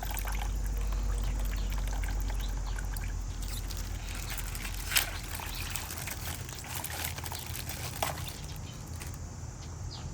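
Water trickling and sloshing as a water-filled plastic bag is opened, with two sharp clicks about five and eight seconds in.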